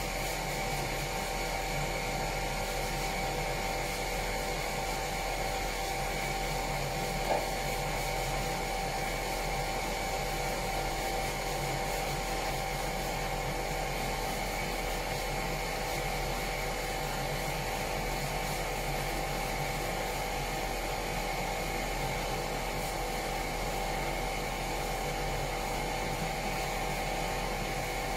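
Electric sander running steadily on the bilge, a constant motor whine with a low hum beneath it.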